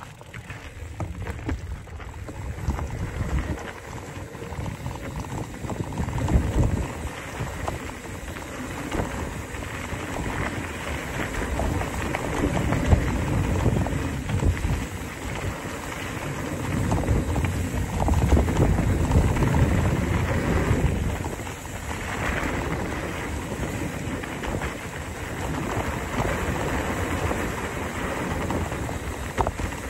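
Wind buffeting the microphone in uneven gusts over a low rumble and crunch of fast travel down a dirt and gravel trail, loudest a little past the middle.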